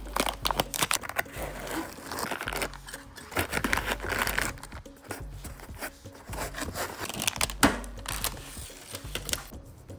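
Unboxing handling noise: foam packing inserts and plastic bags crinkling and rustling, with irregular clicks and knocks and one sharp knock about three-quarters through. Near the end, protective plastic film is peeled off the acrylic lid.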